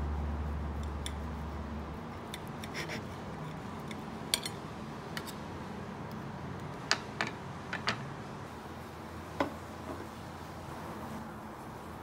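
Metal knife cutting through a toasted egg sandwich on a ceramic plate, with a few sharp clinks as the blade and utensils strike the plate, several of them clustered about seven to eight seconds in. Soft background music fades out in the first two seconds.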